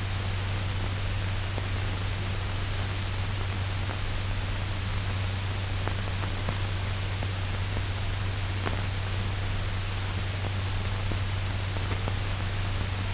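Steady hiss and low hum of an old 1940 optical film soundtrack, with a few faint clicks partway through.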